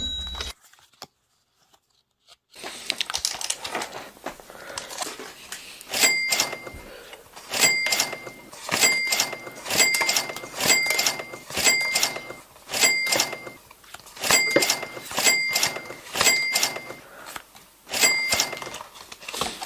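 Pokémon trading cards rustling as they are shuffled through by hand, then a run of about a dozen short ringing chime sound effects, each starting with a click, about one a second, one for each card brought to the front. Near the start there is a short gap of near silence.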